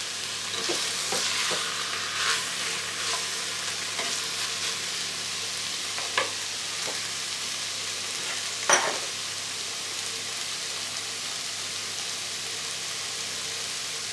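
Chicken and mushrooms sizzling steadily in a multicooker's non-stick bowl on its frying mode. For the first few seconds a plastic spatula stirs and scrapes through the pieces. Two short knocks come about six and nine seconds in.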